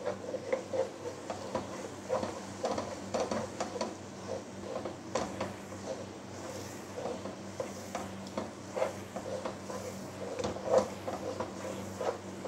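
Wooden spatula scraping and knocking against a nonstick pan in quick repeated strokes, about two or three a second, as it stirs and turns a dry, crumbly milk-cake (khoa) mixture in ghee. This is the final roasting of the milk solids once their water has cooked off.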